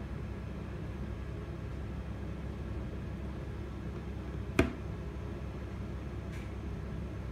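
Steady low background hum, with one sharp click about four and a half seconds in.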